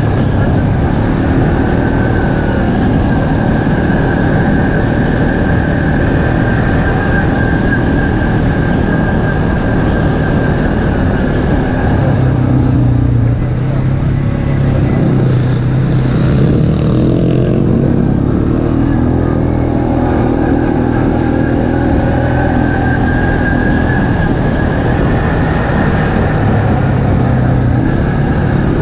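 ATV engine running under way on a dirt trail, heard from onboard. The engine note drops for several seconds around the middle of the ride, then picks back up.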